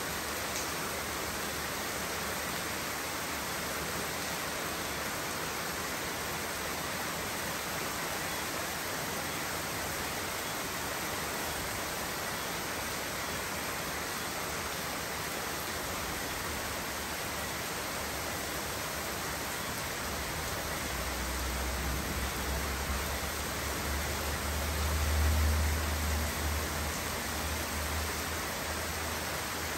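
Steady rain falling, a continuous even hiss. Past the middle a low rumble swells for several seconds and fades away.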